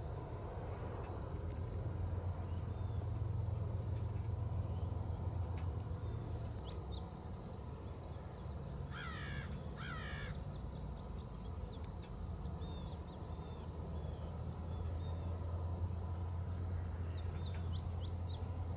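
Steady outdoor chorus of late-summer insects, a shrill high drone, over a low steady rumble. About nine seconds in, a bird gives two harsh calls, and a few faint chirps come near the end.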